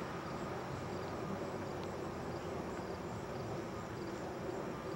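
Steady outdoor background noise with faint insects chirping, heard over camcorder hiss.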